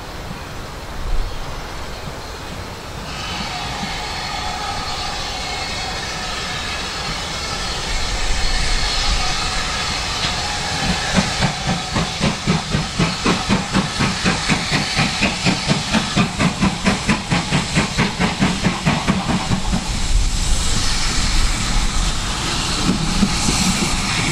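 Steam locomotive approaching under power. A rising hiss of steam comes first, then from about ten seconds in the exhaust beats come through clearly at about two a second, growing louder as it nears.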